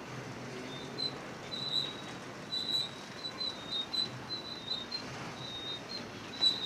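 Double-stack intermodal freight cars rolling past with a steady rumble, their steel wheels giving short, high-pitched squeaks that come irregularly, about one or two a second.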